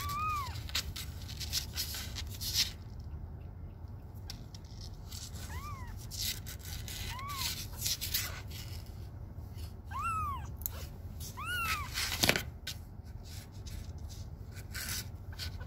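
Young kitten mewing in five short, high cries that rise and fall, spread across several seconds as it is held for claw trimming, with brief clicks and rustles in between.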